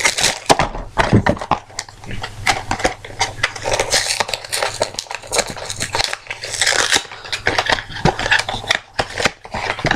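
A Funko mystery-mini blind box being opened by hand: its packaging crinkling and rustling, with many small irregular clicks and taps as it is torn and handled.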